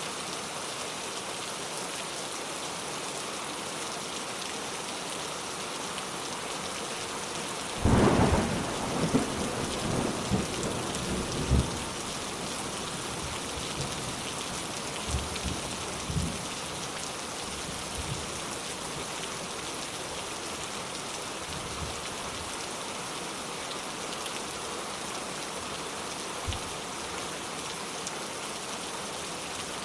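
Steady rain falling, with a sudden clap of thunder about eight seconds in that rolls and crackles for a few seconds, then fainter low rumbles of thunder later on.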